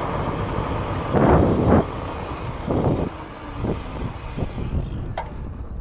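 Riding noise of a fat-tyre electric bike off-road: a noisy rumble of wind on the microphone and tyres rolling over rough ground, with louder bumps about a second in and a few knocks later.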